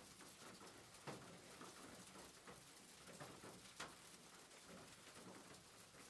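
Faint steady rain, a dense patter of drops, with two sharper, louder drips about one second and four seconds in.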